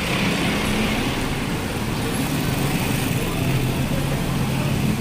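Steady street traffic noise, with motor engines running close by as vehicles pass.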